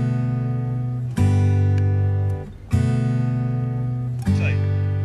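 Background music: acoustic guitar strumming chords, each chord left to ring for about a second and a half before the next strum.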